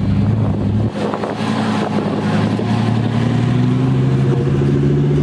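Lamborghini Huracán Performante Spyder's V10 engine running at low revs as the car pulls away, with a brief drop in the note about a second in, then the engine pitch rising as it accelerates near the end.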